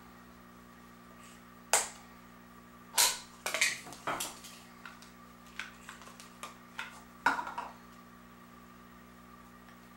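Scattered clicks and knocks of plastic Play-Doh tubs being handled and set down on a table, loudest about two, three and seven seconds in, over a steady hum.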